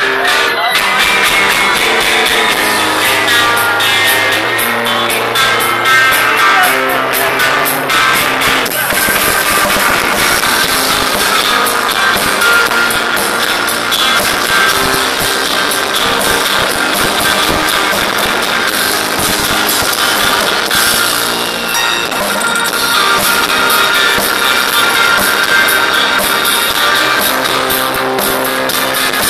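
Live rock band playing loudly, with guitars and a drum kit, picked up on a mobile phone's microphone so the sound is harsh and distorted.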